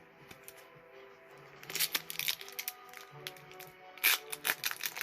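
Background music with sustained notes, over which a foil booster pack crinkles in two bursts of handling, about two seconds in and again about four seconds in.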